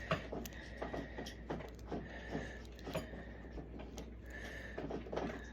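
Bent paper-clip pick and tension bar working inside a lock: small irregular metal clicks and scrapes as the pins are raked, with a faint thin scraping tone that comes and goes.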